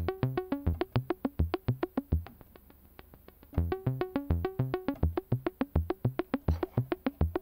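Buchla modular synthesizer sequence played through a Buchla 292e low pass gate: a fast run of short, plucked, pitched notes, the classic "Buchla bongo" sound. The sound drops quieter and thinner about two seconds in and returns about a second and a half later, as the gate is switched between its low pass, gate and combo modes.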